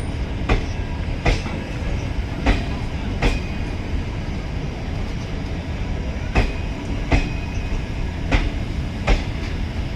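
Passenger train running on the track: a steady rumble with the clickety-clack of coach wheels crossing rail joints, four pairs of sharp clacks.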